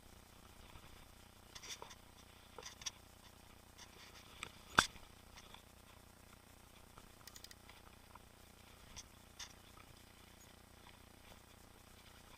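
Mountain bike riding over a trail: scattered light clicks and rattles from the bike, with one sharp knock about five seconds in.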